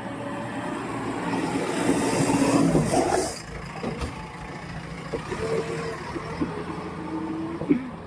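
Heavy diesel vehicle engine running, getting louder, with a loud hiss about two seconds in that cuts off sharply about a second later; the engine then runs on more quietly.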